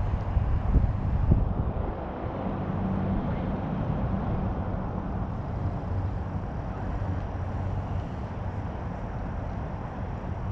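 A steady low mechanical hum and rumble, like an engine or machinery running at a distance, with a few soft knocks about a second in.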